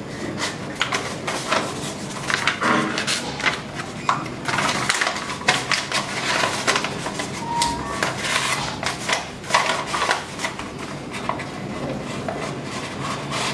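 A paper cone rolled from notebook paper crinkling and rustling as it is handled and a large needle is pushed through its tip: irregular crackles and rustles.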